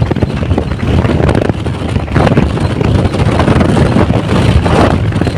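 Wind buffeting the microphone of a phone filming from a moving scooter, a loud rumbling that rises and falls, mixed with the scooter's road noise.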